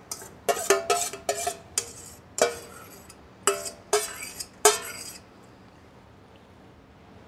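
Stainless steel bowl and metal spoon clinking as diced ingredients are scraped and knocked out into a frying pan: about ten ringing clinks at an uneven pace, stopping about five seconds in.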